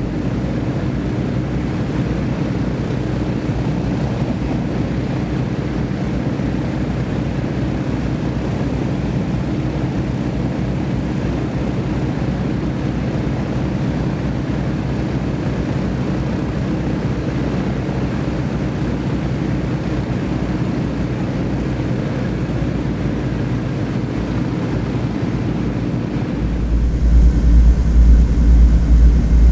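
Avro Shackleton's Rolls-Royce Griffon V12 piston engines running steadily on a ground run, driving contra-rotating propellers, with a deep, even multi-toned drone. About three seconds before the end the sound turns into a louder, deeper rumble heard from inside the cockpit.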